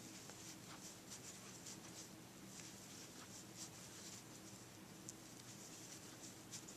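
Faint, soft scratching and rustling of a crochet hook drawing yarn through single crochet stitches, in irregular swishes about once a second, over a faint steady hum.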